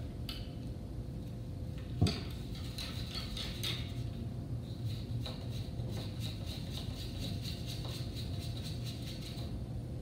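Paintbrushes swirled and tapped against the inside of a cup of rinse water, a fast run of light clicks with one sharper knock about two seconds in.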